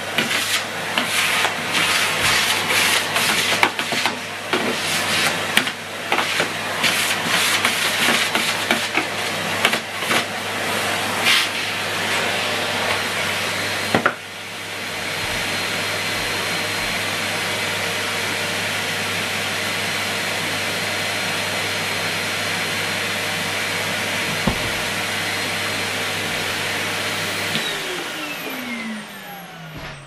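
Numatic Henry 160 cylinder vacuum cleaner running. For about the first half the floor tool is worked over carpet with many clicks and rattles; after that the motor runs on steadily. Near the end it is switched off and the motor's whine falls in pitch as it spins down.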